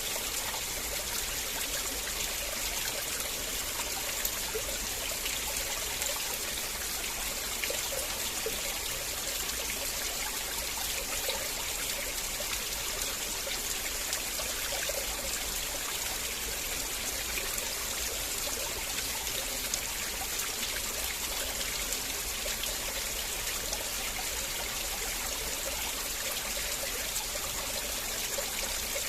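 River water flowing and trickling steadily, a constant even rush with a bright hiss in the highs.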